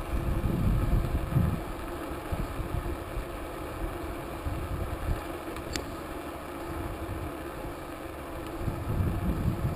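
Wind buffeting the microphone over the steady road noise of a bicycle rolling on asphalt, gustier in the first second or so and again near the end. One brief click a little past halfway.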